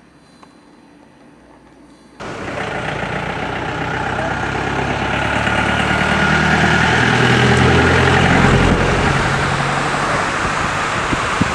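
Faint ambience for about two seconds, then a sudden cut to a loud engine: an old jeep drives up and past, its low engine note swelling to a peak and easing off, over a steady rushing noise.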